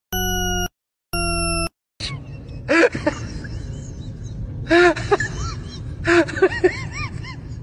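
Two harsh electronic beeps about a second apart, each sliding slightly down in pitch. Then rustling and a dog's short, high whining yelps, each rising and falling, coming in small clusters.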